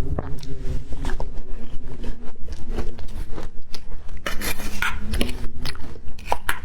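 Close-miked chewing of matcha-powdered ice with crunchy candy: a dense run of crisp crunches and grinding. A louder crunching bite comes a little past the middle, and another near the end.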